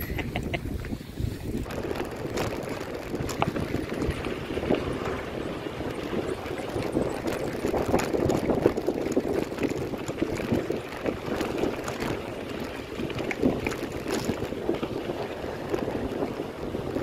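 Mountain bike rolling over a rough dirt and gravel road: steady tyre rumble with frequent small clicks and rattles from the bike, and wind noise on the microphone.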